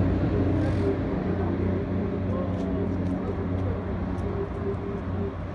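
An engine running steadily, a low even hum, with faint voices in the background.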